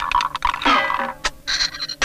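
Cartoon soundtrack music: a quick, busy run of short notes with sharp attacks, and a few high held tones near the end.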